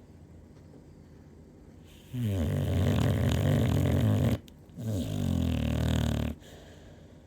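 Heavy snoring: two long, loud snores in quick succession, starting about two seconds in, the second a little shorter than the first.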